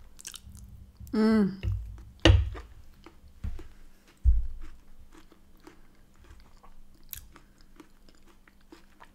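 Close-miked chewing of a last mouthful of soft mashed potato with sweetcorn: wet mouth clicks and smacks, with a short hum about a second in. A few dull knocks come between two and four and a half seconds in as the metal fork is set down on the wooden board.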